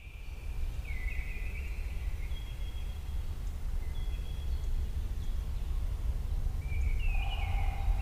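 Wild birds calling, several short high phrases, the longest near the end, over a steady low rumble.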